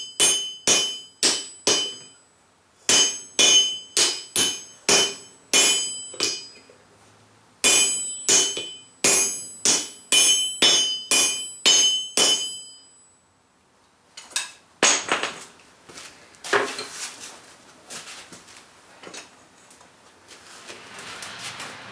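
Hand forging: hammer blows on hot steel against an anvil, two to three a second, each with a bright metallic ring, in three runs with short pauses. The hammering stops about two-thirds of the way in and gives way to softer, irregular rough noise.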